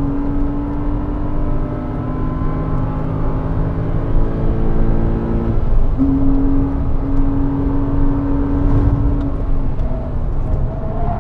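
Porsche Cayman 987 flat-six engine pulling hard on track, heard from inside the cabin over tyre and road noise. Its note rises slowly, breaks off briefly about halfway through, then carries on and eases near the end.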